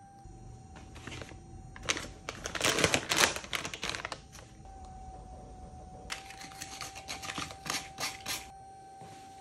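A foil-and-plastic repair-kit pouch crinkling loudly as it is handled, a couple of seconds in. From about six seconds in comes a rapid run of short scratchy strokes: an abrasive pad scuffing the rubber sidewall of a knobby tyre to prepare it for a patch. A faint steady high tone hums underneath.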